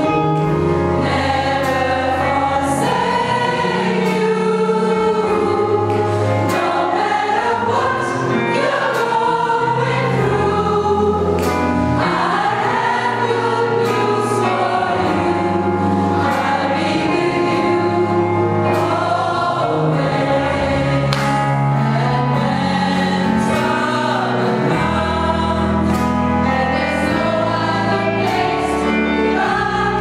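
Large gospel choir of mostly women's voices singing with band accompaniment: sustained bass notes underneath and regular percussion strokes.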